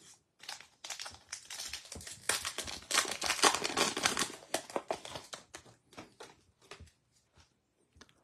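Wrapper of a Topps baseball card pack crinkling as it is torn open and the cards are pulled out, loudest in the middle, thinning to a few light clicks near the end as the cards are handled.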